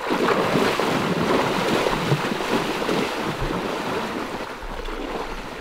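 Heavy splashing of a person in waders wading fast through shallow river water, a continuous churning that eases slightly toward the end.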